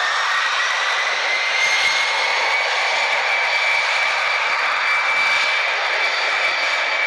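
Airbus A319-111 jet engines (CFM56 turbofans) running at high power on the takeoff roll: a steady, loud rush of jet noise with a thin whine that rises slowly in pitch as the engines spool up.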